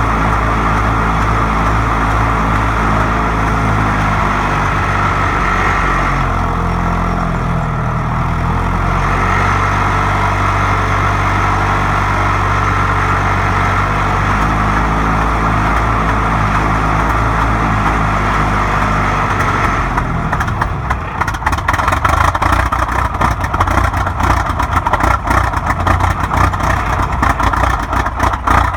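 1947 Caterpillar D7 crawler tractor running on a cold start in about −8 °C: a steady engine note that shifts in pitch a few times, then about 20 seconds in turns rough and uneven with rapid irregular knocking.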